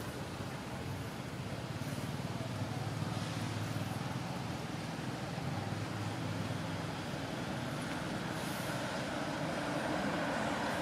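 Steady low motor rumble, getting a little louder near the end.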